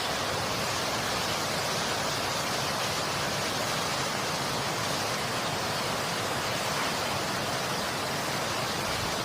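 Steady, even rushing noise at a constant level, cutting off abruptly at the end.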